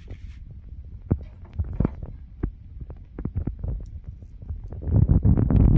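Low rumbling handling noise with scattered knocks and clicks, growing louder about five seconds in.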